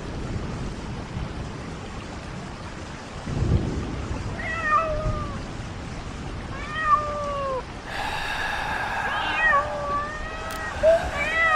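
Steady rain with low rolls of thunder, then a cat meowing about four times, each call sliding down in pitch. A steady droning tone comes in about two-thirds of the way through.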